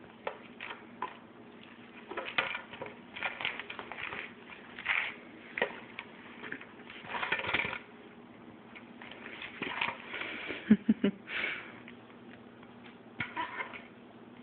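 Empty plastic soda bottle handled on a tile floor: knocking, crinkling and rolling in irregular bursts, with a few sharp clacks about ten to eleven seconds in.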